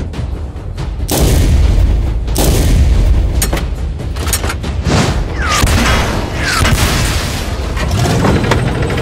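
Cartoon battle sound effects: deep booms and sharp shots over a continuous low rumble, with two falling whistles a little past halfway.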